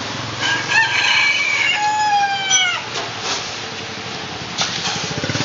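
A rooster crowing once, a drawn-out call that falls in pitch at the end. Under it runs a low steady hum, with a few clicks in the second half.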